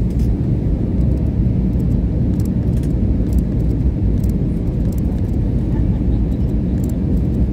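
Steady low rumble of cabin noise inside an Airbus A320 airliner on its descent, from the jet engines and the airflow over the fuselage, with a few faint light clicks.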